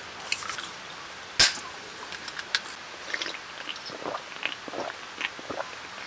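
Close-up crunching and chewing of a thin, crisp snack: irregular small crackles, with one sharp click about a second and a half in.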